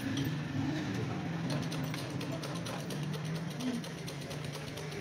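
Fast, even run of light ticks starting about a second and a half in, as a motorcycle spoke wheel is turned by hand on a truing stand, over a steady low hum of shop and street background.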